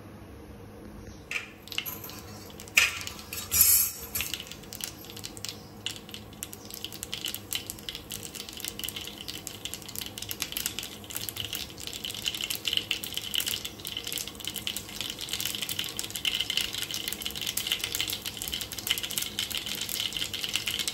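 Mustard seeds spluttering in hot oil in a frying pan: a dense crackle of tiny pops that grows thicker as the seeds heat. A few louder sharp knocks come about two to four seconds in.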